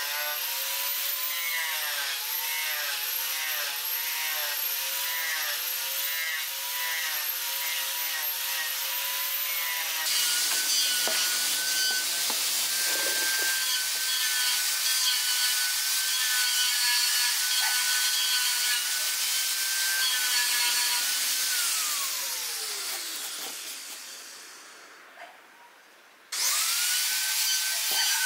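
Wood lathe cutting a bamboo blank, the motor's whine wavering in pitch as the tool bites. After an abrupt change about ten seconds in, a motor runs steadily with a high whine, winds down in pitch to a near stop, then starts up again near the end.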